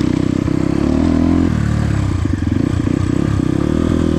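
Motorcycle engine running on the move. A little past a second in, the throttle eases and the engine drops into a lower, evenly pulsing beat.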